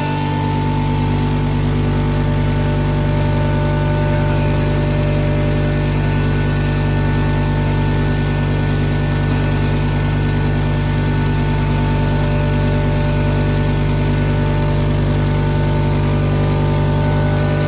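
A 7.5 HP double-chamber stoneless maize grinder (atta chakki) running steadily, giving a loud, even mechanical hum with no change in speed.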